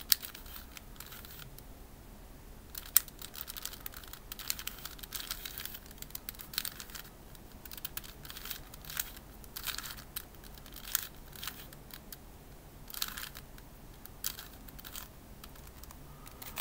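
Plastic clicks and clacks of a Diansheng 3x3x2 Crazy cuboid puzzle being turned by hand, its layers snapping through turns in irregular runs, the sharpest click about three seconds in.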